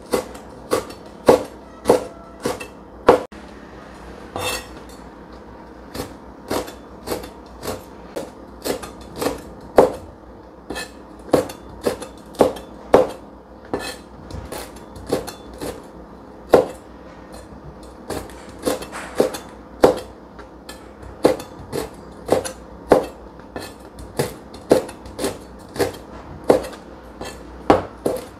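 Chinese cleaver chopping red chillies and garlic on a cutting board: sharp knocks of the blade striking the board, irregular, about one or two a second.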